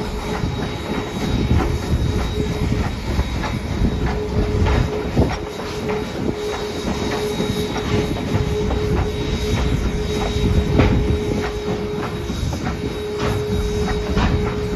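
Railroad cars rolling slowly behind a steam locomotive. The wheels clatter and click over the rail joints under a heavy rumble, and a steady squeal from wheel flanges grinding on the curve drops out briefly a couple of times.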